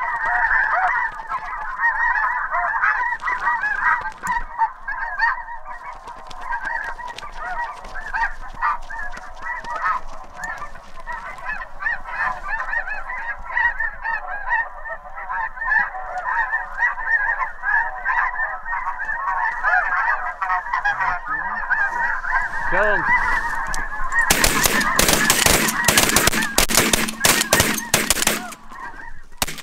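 A dense, continuous chorus of snow goose calls, many high yelping honks over one another. About 24 seconds in, a quick volley of roughly a dozen shotgun blasts from several guns fires at the decoying geese, louder than the calling.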